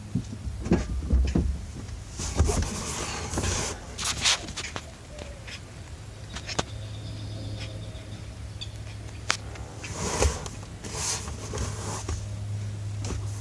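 Handling noises from equipment being set up: scattered clicks, knocks and rustles over a steady low hum.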